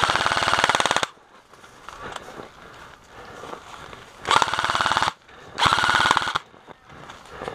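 Airsoft replica rifle firing on full auto in three rapid bursts: one about a second long at the start, then two shorter ones a few seconds later.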